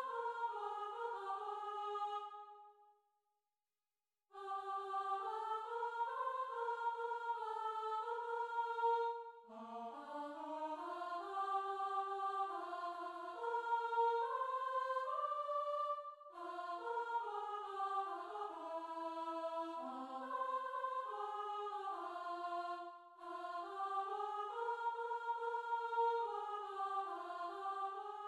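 Soprano line of a choral anthem sung unaccompanied, a single melody in phrases, with a pause about three seconds in and short breaths between the later phrases.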